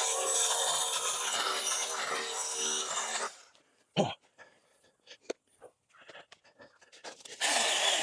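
Battery-powered Stihl mini pruning chainsaw cutting through overgrown brush for about three seconds, then stopping. A sharp crack follows, then scattered snaps and crackles of branches. The saw runs again briefly near the end.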